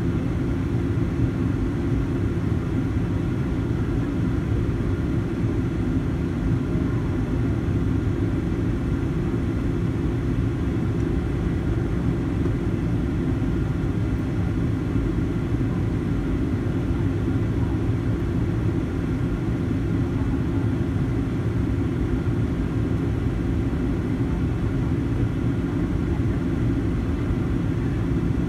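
Steady cabin noise inside a Boeing 737-800 in flight: the CFM56-7B engines and the airflow make an even, low rumble with faint steady tones above it.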